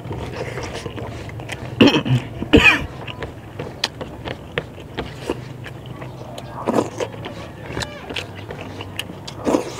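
Two short, loud coughs about two seconds in from a man eating with his hands. Between them and after are the small clicks and smacks of chewing and fingers working rice, and a couple of brief voiced sounds later on.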